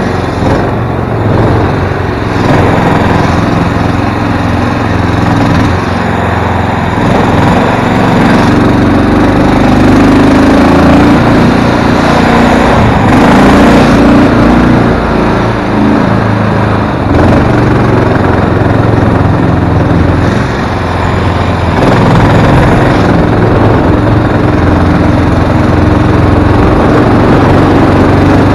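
Small mud motor pushing an aluminium jon boat, running steadily under way, its pitch shifting up and down at times and easing off briefly about two-thirds through.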